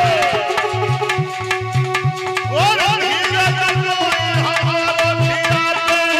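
Devotional bhajan music: a hand drum playing a quick rhythm of deep bass strokes and sharp slaps over held instrumental tones, with a man's voice singing a gliding melody.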